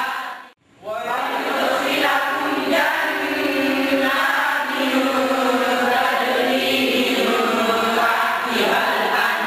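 Several boys' voices reciting the Quran aloud in a chanted style (tartil). The sound cuts out for a moment about half a second in, then resumes.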